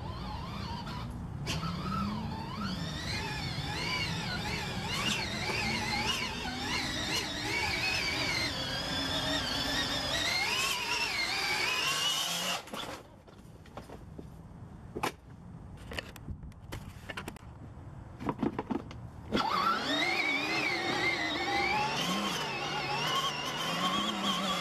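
A blue battery-powered ride-on toy tractor being driven over muddy ground, its electric drive giving a wavering whine and squeal. The whine drops away about halfway through, leaving scattered clicks and knocks, then comes back strongly about three quarters of the way in.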